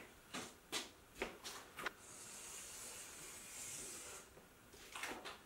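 A few light knocks as a long level is handled and set against a flip-chart pad, then a felt-tip marker drawn along the paper in one long stroke, a steady scratchy hiss of about two seconds, followed by a couple more light knocks.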